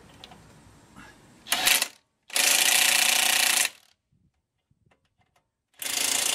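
Cordless driver running the brake caliper bracket bolts in: a short burst about a second and a half in, then two longer bursts of over a second each, the last near the end.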